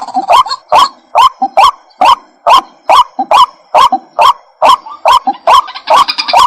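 Waterhen calling: loud, harsh, croaking notes repeated in an even rhythm, about two and a half a second. Near the end a denser, higher chattering joins in.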